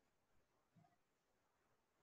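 Near silence: faint room tone on the call.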